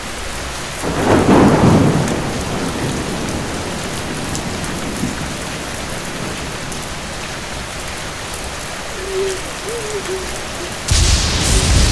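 Steady rain falling, with a louder swell of sound about a second in. Near the end, loud thunder starts suddenly.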